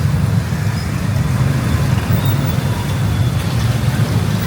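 Steady, loud low rumble of road traffic, heard from a moving motorbike in the rain.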